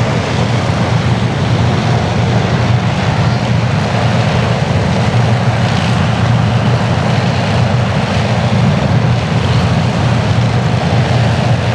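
Piston aircraft engines running with a loud, steady, low drone.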